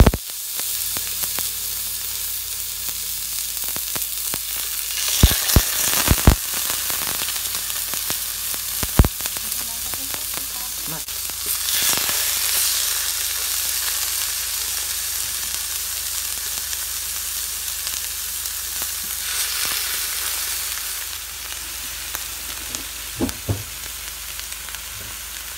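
Pieces of marinated shad sizzling in hot oil in a frying pan, the sizzle swelling a few times as more pieces go in. A few sharp clicks come from chopsticks placing and turning the pieces.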